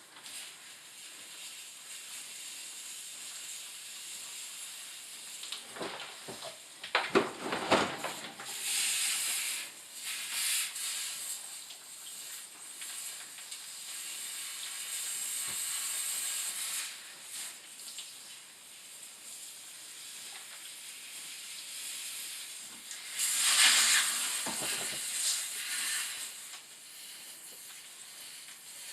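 Pressurised water hissing as it sprays from a water supply line cut open inside a shower wall, the jet swelling and fading. A couple of bursts of knocking and clattering come about a quarter of the way in and again past the three-quarter mark.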